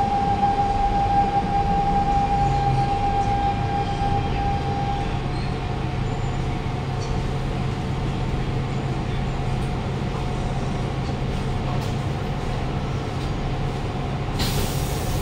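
Interior of a Siemens C651 train car slowing into a station: a steady whine that fades out about five seconds in over a constant low running hum, then a sudden burst of air hiss near the end as the train comes to a stop.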